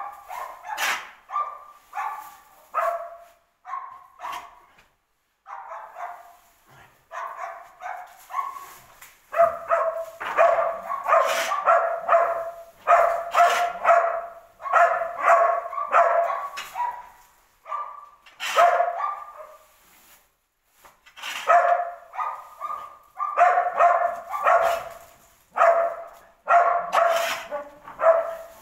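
An animal calling over and over in short calls, up to about two a second in the busiest stretches, with a few short pauses.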